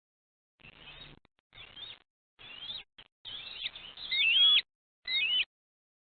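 Bald eagle calling in a run of short, high bursts whose pitch sweeps up and down. The loudest burst comes about four seconds in.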